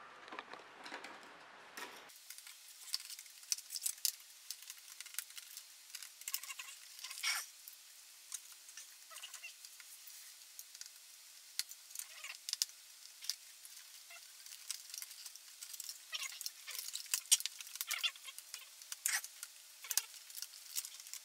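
Scattered small clicks, taps and light rattles of hands working inside an opened iMac G5: connectors being unplugged and metal and plastic parts being handled.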